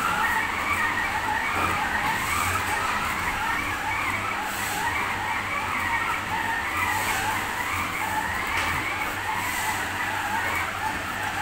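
Croun 10-litre stand mixer running: a steady motor whine that wavers up and down in pitch, with a high hiss that swells every couple of seconds.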